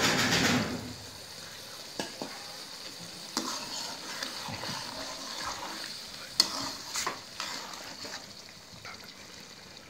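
A splash of water poured into a hot wok of keema, potatoes and peas hisses loudly for about a second as it hits the pan, added so the curry doesn't stick to the bottom. The curry then sizzles steadily while a metal slotted spoon stirs it, scraping and clicking against the pan.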